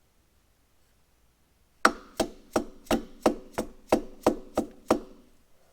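A hammer striking metal: about ten sharp, even taps at roughly three a second, each with a short metallic ring.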